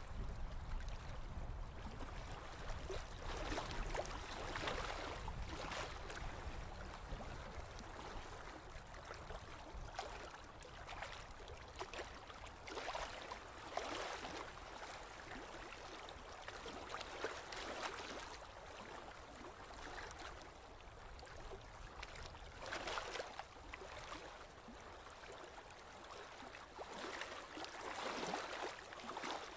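Water sloshing and lapping against the hull of a slowly moving boat, swelling irregularly every second or two.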